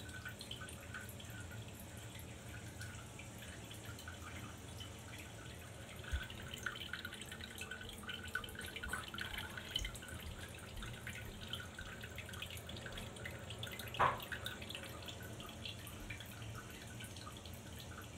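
A Sphynx cat urinating into a toilet bowl from the seat: a long, thin trickling and dripping of urine into the water. One brief louder sound stands out about three-quarters of the way through.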